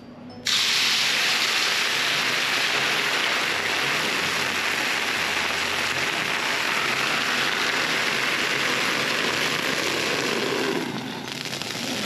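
White wine poured into a hot hōraku clay pot of seafood, sizzling and hissing loudly as it flashes to steam to steam the seafood. The sizzle starts suddenly about half a second in, runs steadily, and eases off near the end.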